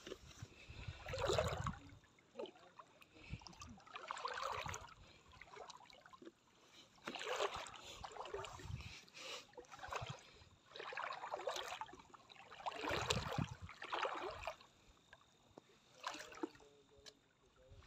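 Seawater splashing and sloshing in irregular surges, one every second or few, some with a low thump under the splash.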